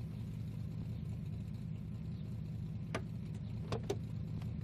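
Car engine idling with a steady low hum. About three seconds in come a few sharp clicks of a car door latch, and the passenger door opens.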